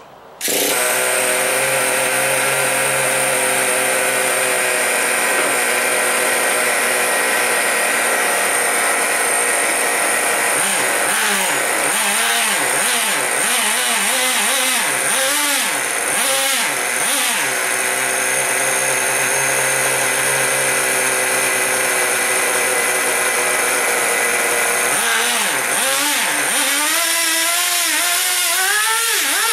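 Traxxas 2.5 nitro engine in an R/C monster truck starting about half a second in and running steadily. From about ten seconds in, and again near the end, the throttle is blipped several times so the engine's pitch swings up and down.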